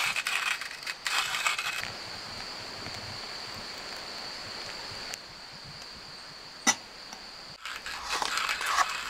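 Hand-cranked coffee grinder grinding beans for about two seconds, then a steady soft hiss as hot water is poured from a gooseneck kettle over the grounds in a paper filter, with one sharp click about two-thirds of the way through.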